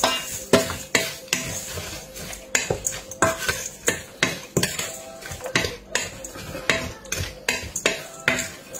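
A spoon stirring dry stuffing mix and water in a stainless-steel bowl, knocking and scraping against the bowl about twice a second.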